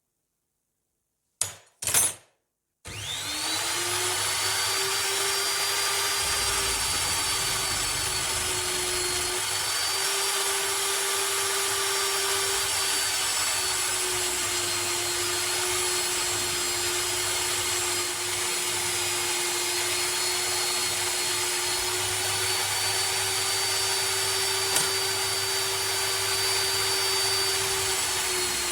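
Two short sharp sounds, then an electric power tool's motor spins up about three seconds in and runs steadily at a constant high whine.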